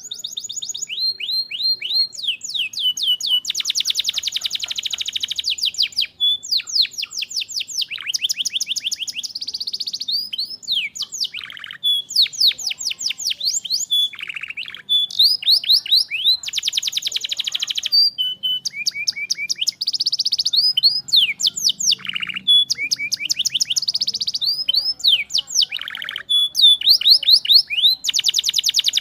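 Domestic canary singing a long, continuous song. Phrases of rapidly repeated down-sweeping high notes alternate with fast, dense trills, with only a brief pause about six seconds in.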